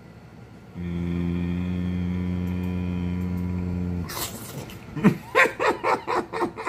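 A deep, steady, voice-like hum held for about three seconds, then wet mouth noises as turkey leg meat is chewed: irregular lip-smacking clicks.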